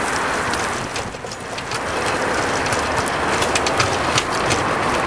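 A Python-style recumbent cargo bike and its camera trailer rolling on wet asphalt: a steady tyre hiss with irregular sharp clicks and rattles, which come more often from about a second and a half in.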